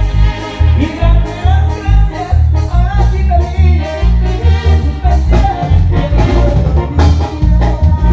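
Live band music played loud: electronic keyboards, drum kit and bass guitar keep a strong, regular bass beat, with a voice singing over it.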